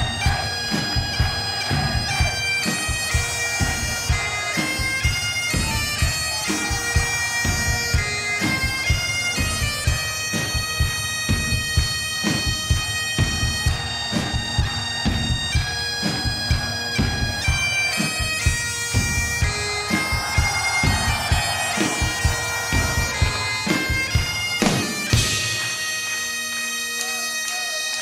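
Great Highland bagpipes playing a tune over their steady drone, with a drum keeping a steady beat; the drum drops out a few seconds before the end while the pipes carry on.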